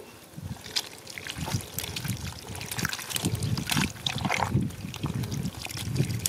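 Wet mud and shallow water squelching and splashing in irregular little splats as hands scoop small stranded fish out of the mud into a plastic basket.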